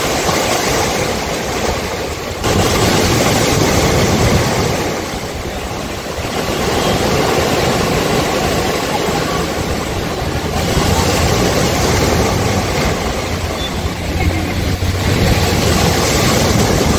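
Sea waves breaking over and washing through a bank of concrete tetrapods on a sea wall: a loud rushing surf that swells and falls back about every four seconds.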